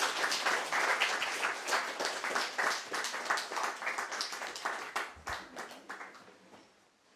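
Audience applauding, many hands clapping together, fading out over the last two seconds.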